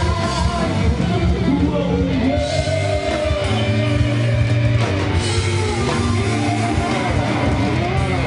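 Rock band music: electric guitar playing sustained and sliding melodic lines over bass and drums.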